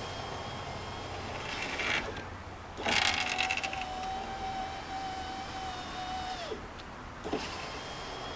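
Rear-door power window motor and newly fitted regulator of a 2006 Chevy/GMC Duramax pickup running the glass up and down: short runs of motor whine, each started and stopped with a click, the longest a steady whine of about three and a half seconds in the middle. The new regulator is working properly.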